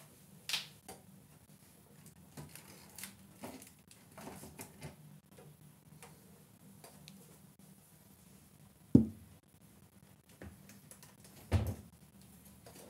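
Scattered light clicks and taps of small objects being handled, with two dull thumps about nine and eleven and a half seconds in.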